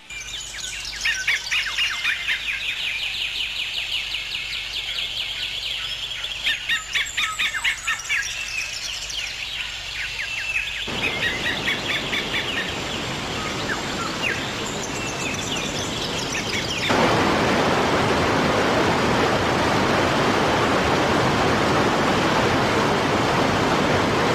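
Birds chirping in quick repeated calls. About eleven seconds in a steady rush of water comes in under them, and some six seconds later it becomes much louder, like a waterfall, covering the birdsong.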